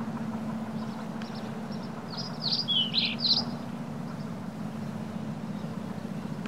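A small bird gives a short burst of quick, high chirps, about two seconds in and lasting a second and a half, over a steady low hum.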